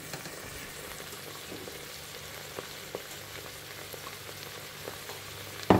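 Pot of oil-fried rice, saffron and soaking water coming to the boil on the stove, a steady sizzling hiss with a few faint ticks. A sharp knock near the end.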